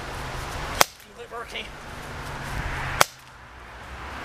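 Two shots from a CO2-powered Heckler & Koch USP airsoft pistol: sharp, short pops about two seconds apart.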